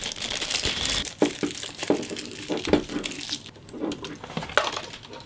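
A clear plastic packaging bag crinkling and rustling in the hands while a cable is handled, with scattered light clicks.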